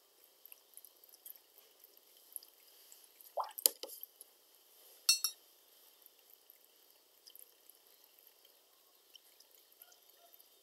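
A paintbrush rinsed in a glass of water: a short watery swish and clink about three and a half seconds in, then a second clink against the glass a second and a half later. Faint light ticks otherwise.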